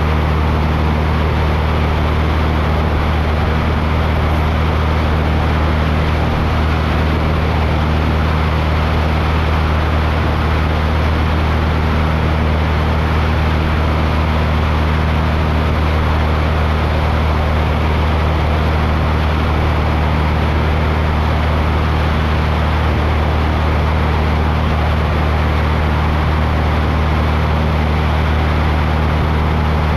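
Light aircraft's engine and propeller running steadily in cruise, heard inside the cabin: a constant low hum with an even rushing hiss over it.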